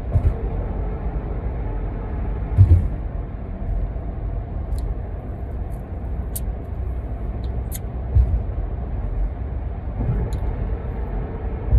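Steady low rumble like a running vehicle, with a few soft thumps and light ticks.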